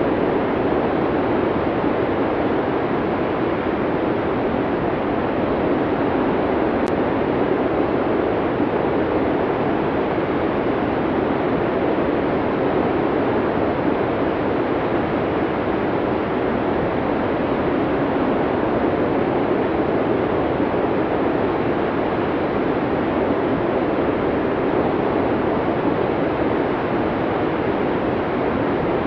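Snowstorm wind blowing steadily: a dense, even rush of noise with no lulls or distinct gusts.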